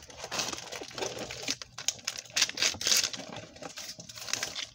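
Small plastic toy pieces and packaging being handled: irregular light clicks, taps and crinkling as tiny doll accessories are fitted and fiddled with.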